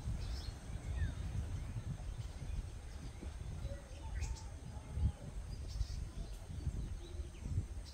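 Faint, scattered bird chirps and a few thin downward-sliding calls, over a steady low rumble on the microphone.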